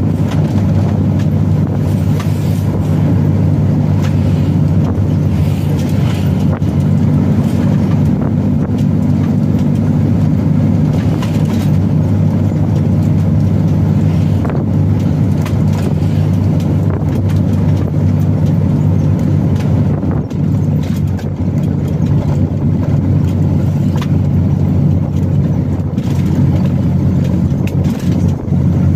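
Delivery truck's engine running steadily at cruising speed, a constant low drone under road and tyre noise, heard from inside the cab.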